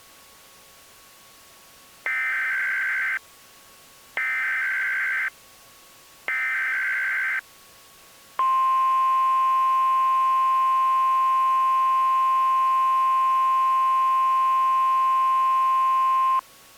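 Emergency Alert System header: three short bursts of warbling data tones about two seconds apart, then a steady, loud attention tone lasting about eight seconds that cuts off suddenly.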